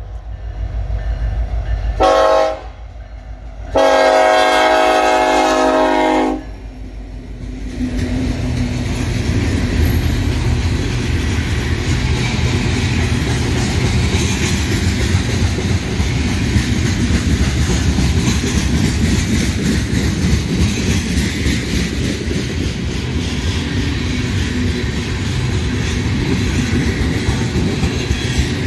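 Locomotive horn sounds a short blast about two seconds in, then a long blast of about two and a half seconds, closing out a grade-crossing signal pattern. From about eight seconds on, the train passes steadily: the rumble and rattle of the cars, with wheels clicking over rail joints.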